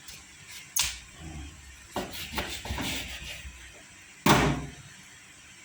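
A knife chopping through raw chicken on a cutting board: several separate sharp chops a second or two apart, the loudest about four seconds in.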